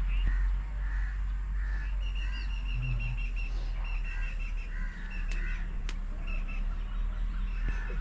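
Crows cawing repeatedly over a steady low rumble, with two sharp clicks just past the middle.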